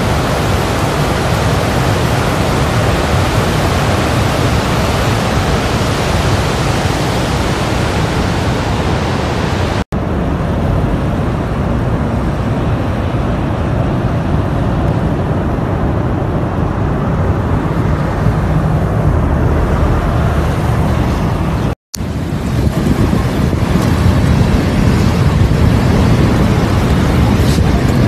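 Steady roar of water pouring over Niagara's Horseshoe Falls, a dense rushing noise with a heavy low rumble. It breaks off twice, at cuts about a third and three quarters of the way in, and the middle stretch sounds duller.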